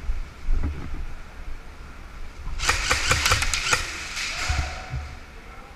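Airsoft gun firing a rapid burst of about ten shots, lasting about a second, starting about two and a half seconds in.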